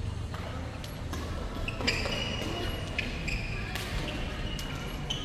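Badminton rally: the shuttlecock is struck by rackets several times, sharp hits roughly a second apart, with sneakers squeaking on the wooden court floor.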